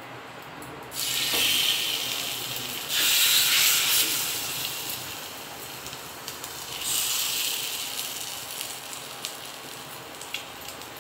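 Batter-coated pumpkin flowers sizzling in hot oil on a flat iron griddle (tawa). The sizzle flares up three times, about one, three and seven seconds in, as each piece is laid on the oil, and dies down after each.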